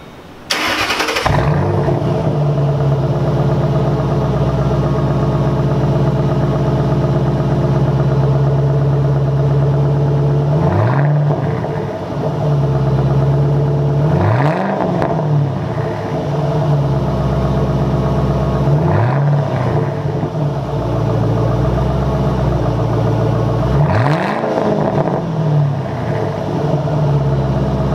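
Ford Mustang GT's 4.6-litre V8 starting up through newly fitted Flowmaster Outlaw axle-back mufflers, with a loud flare about half a second in. It then idles steadily and is blipped four times, each rev rising and falling quickly.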